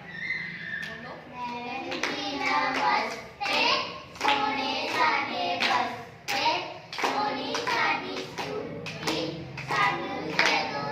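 Young children chanting or singing a rhyme in unison while clapping their hands along.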